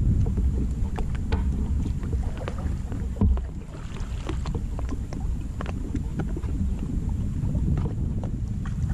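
Wind rumbling on the microphone, with scattered small clicks and knocks as a dead branch and tangled line are handled from a kayak.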